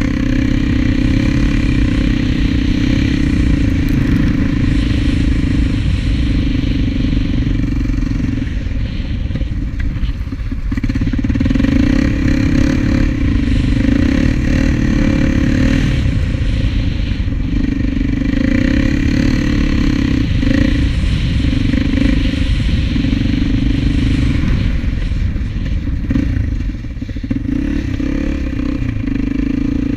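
Honda TRX400EX quad's single-cylinder four-stroke engine running under throttle while riding. The engine note dips briefly about a third of the way in and again near the end.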